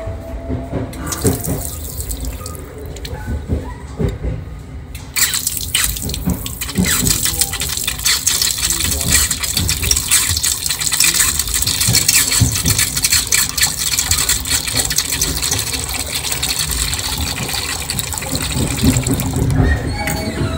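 Water running steadily from a tap into a washbasin aboard a JR 681-series train. It starts as a thin trickle about a second in, becomes a full stream about five seconds in, and stops a second or so before the end.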